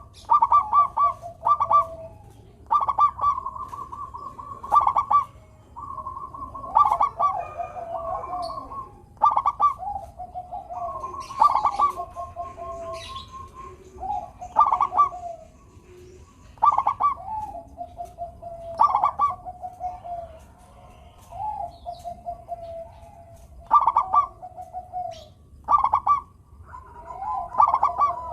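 Zebra dove (perkutut) song: phrases repeated every couple of seconds, each a run of rapid staccato pulses on a higher note that drops to a lower, drawn-out coo.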